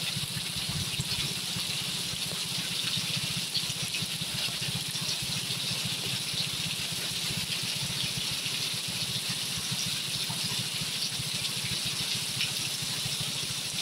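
Heavy rain pouring down steadily: a dense, even hiss of falling drops.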